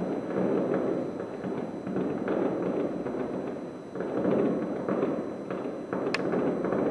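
Fireworks display heard from about 1.3 km away: a dense, continuous rumble and crackle of bursting shells that swells and ebbs, building again about four seconds in, with one sharp crack near the end.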